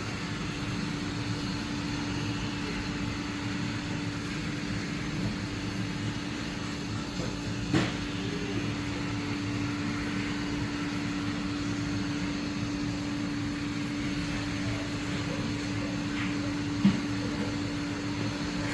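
Roomba robot vacuum running with a steady motor hum and one held tone, with two short sharp knocks, one about halfway through and one near the end.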